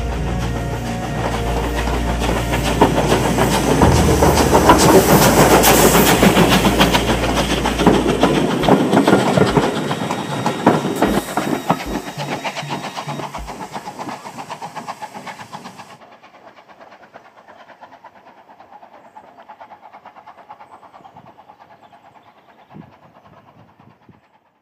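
Bulleid 'Battle of Britain' class 4-6-2 steam locomotive pulling its train away: steam hissing and the coaches' wheels clattering over the rail joints as they pass. It is loudest in the first eight seconds or so, then fades into the distance.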